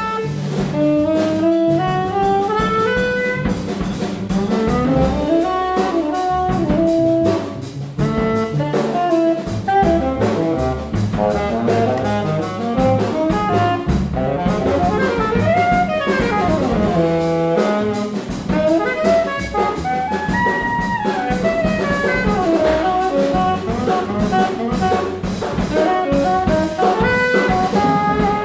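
Jazz quartet of alto and tenor saxophones, double bass and drums playing live: fast saxophone runs that wind up and down over a walking bass line and busy drums.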